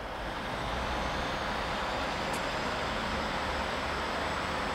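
Passenger train approaching a station platform from a distance, a steady rumbling noise with a faint high-pitched whine that rises a little and then holds.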